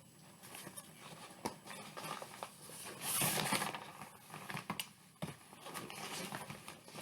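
Irregular rustling and crinkling of tent fabric being handled, with scattered light clicks and a louder rustle about three seconds in.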